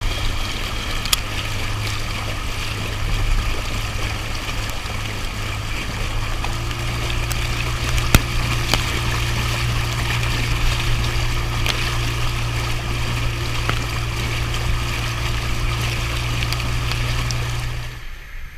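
Motorboat engine running steadily under way, with water rushing and splashing against the hull. It cuts off sharply near the end.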